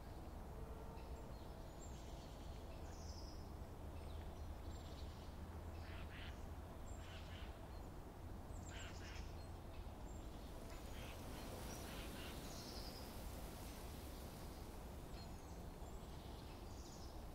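Quiet outdoor ambience: scattered short bird calls and chirps over a steady low rumble, with a soft hiss coming in about ten seconds in.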